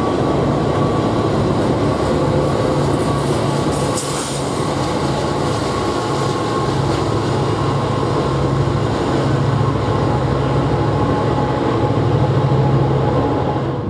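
Norfolk Southern diesel-electric locomotives passing, their engines running with a loud, steady low drone and a faint steady whine above it.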